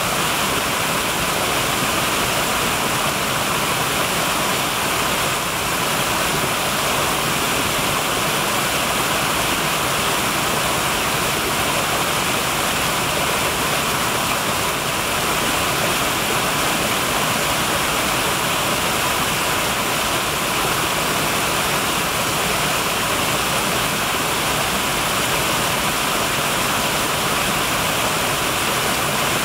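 Small waterfall cascades on a woodland brook pouring over rocks into a shallow pool: a steady, even rush of falling and splashing water.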